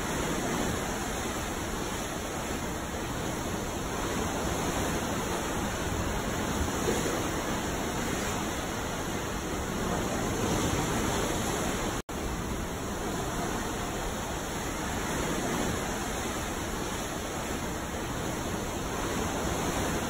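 Ocean waves: a steady wash of water noise that swells and eases gently, cut off to silence for an instant about twelve seconds in.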